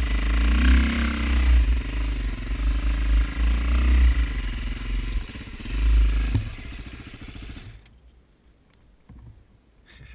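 Dirt bike engine running as the bike is ridden over rough trail. It eases off about six seconds in, then cuts out suddenly about eight seconds in as the engine is shut off.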